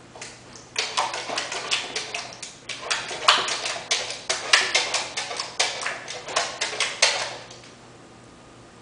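Samoyed puppy slapping a front paw into a stainless steel water bowl again and again: quick splashing slaps, three or four a second, which stop about a second before the end.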